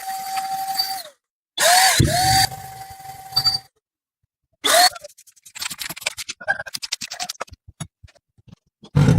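Power tool motor running in several short, abruptly cut bursts, its pitch dipping and recovering as it takes load, followed by scattered clicks and knocks.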